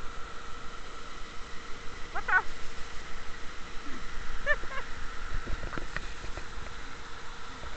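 Small waterfall pouring into a river pool, a steady rush of water. Two short high-pitched calls break through it about two and four and a half seconds in, and a few dull knocks follow later.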